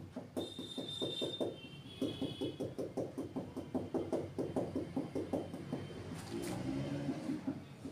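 Felt-tip marker tapping dots onto a whiteboard in a quick run of short, sharp taps, about four a second, stippling the lobe of a drawn p-orbital.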